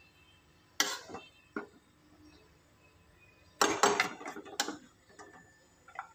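Metal slotted spoon knocking and scraping against a steel karahi while stirring and scooping rice: a couple of single knocks in the first two seconds, then a quick run of four or five knocks about three and a half seconds in.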